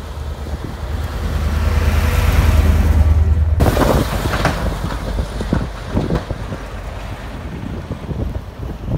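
Blizzard wind gusting and buffeting the microphone over the low steady hum of a vehicle engine. The sound changes abruptly about three and a half seconds in, the low hum dropping away and the wind noise turning gustier.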